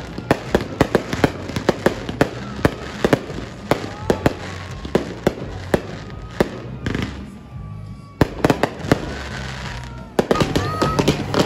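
Aerial fireworks crackling and popping in quick succession, several sharp bangs a second, with a brief lull about seven seconds in before the popping picks up again.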